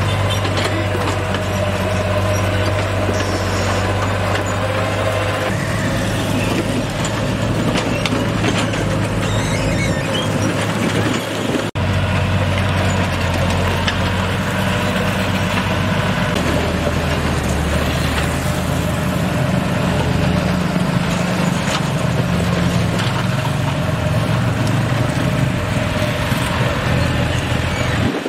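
Komatsu GD405A motor grader's diesel engine running steadily as the grader cuts its blade through a dirt road. It is a continuous low drone, with a brief dropout about twelve seconds in.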